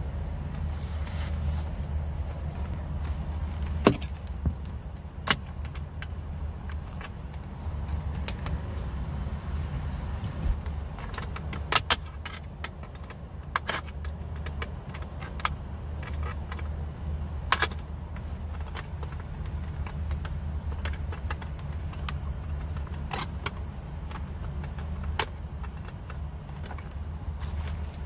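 Scattered sharp plastic clicks and small clinks of hands working wiring harness connectors and clips loose inside a truck cab, over a steady low hum.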